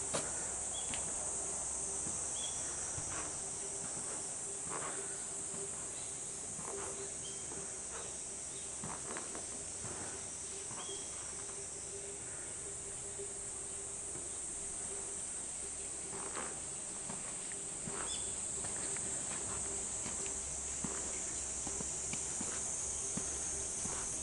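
A steady, high-pitched chorus of insects, with scattered soft knocks and a few brief high chirps.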